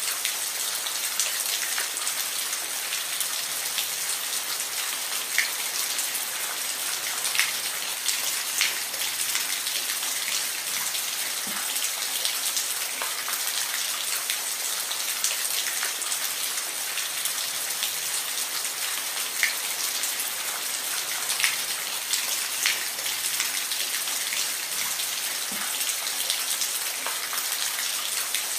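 Steady rain falling, an even hiss with individual drops ticking sharply on a surface every second or two.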